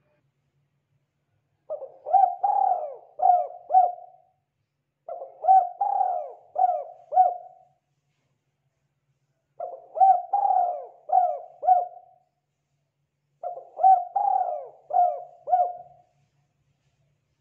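Spotted dove cooing: four phrases, each a run of about four or five rising-and-falling coos lasting two to three seconds, with pauses of one to two seconds between phrases.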